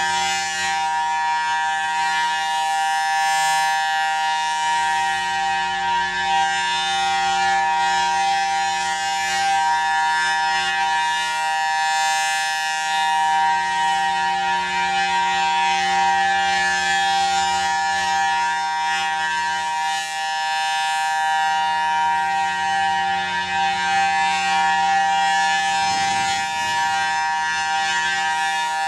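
Federal Signal Thunderbolt 1000T civil defense siren sounding its steady alert tone as a monthly test. The pitch holds level with no rise or fall, and the horn rotates as it sounds.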